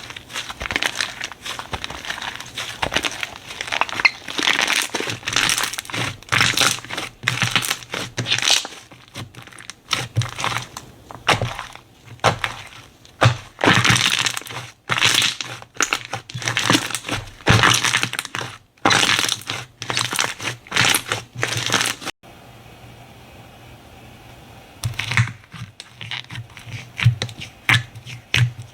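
Slime being squeezed and pressed by hand close to the microphone, giving dense clusters of crackling, crunching pops. They stop for about three seconds about three quarters of the way through, then start again.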